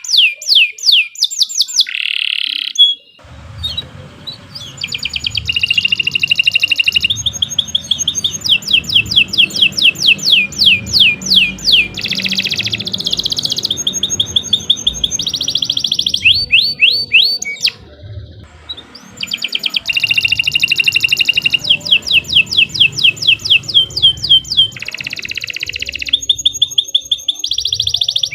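Domestic canary singing a long, continuous song of rapid trills: each phrase is a quick run of repeated falling notes, changing to a new phrase every second or two, with a few buzzy rolls mixed in. The song breaks off briefly twice, about three seconds in and again a little past the middle.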